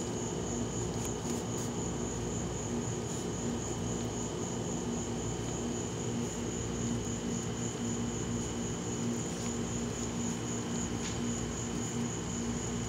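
Night insects trilling steadily, two high pulsing tones that keep an even beat, over a steady low hum. A few faint ticks come through.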